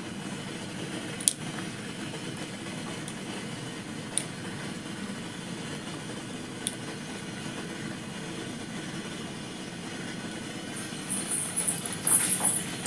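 Water boiling in a steel idli steamer pot, a steady low rumble, with a few light ticks as banana-leaf parcels are set on the steel idli plates. Rustling and clinking near the end.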